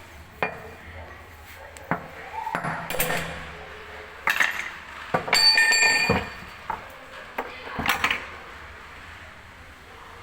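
Irregular metallic clanks and knocks, about eight of them, as metal parts and tools are handled and struck. A little past the middle comes a longer scraping, ringing clatter of metal.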